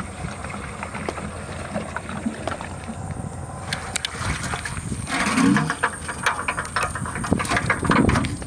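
A large aluminium cooking pot being handled: a quick run of knocks and scraping against the metal starts about four seconds in and is loudest toward the end as the pot is tipped onto a stone hearth. A thin, steady high tone runs underneath.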